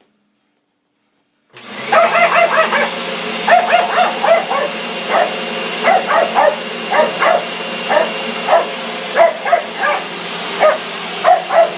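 A vacuum cleaner switches on about a second and a half in and runs steadily, while a dog barks repeatedly over it in quick short runs.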